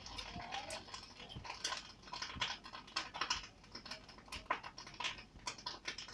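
Egg frying in a non-stick pan, the fat crackling and popping in short irregular ticks, several a second.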